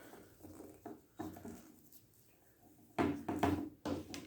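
Knocks and rustling as a new soldering iron and its packaging are handled, with a few sharper clunks about three seconds in.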